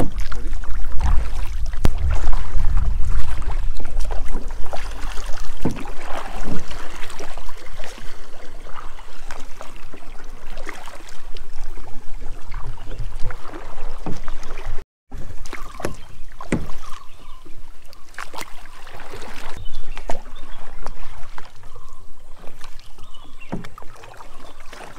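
Kayak paddling on still water: paddle splashes and water sloshing, with irregular knocks and clicks against the boat, and a low rumble in the first few seconds. The sound cuts out for an instant about fifteen seconds in.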